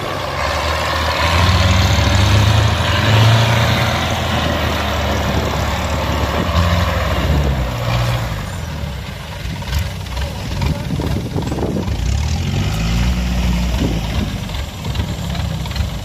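Engine of a small tracked rice-sack carrier running under load, its pitch rising and falling a few times as the driver works the throttle, with clatter from the tracks.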